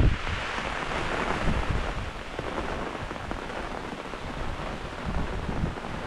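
Heavy rain falling steadily, a dense even hiss, with a low rumble at the start and again near the end.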